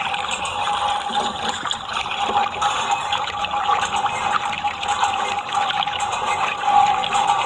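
Water running and splashing steadily, as in washing muddy toy vehicles, with a steady high hum underneath.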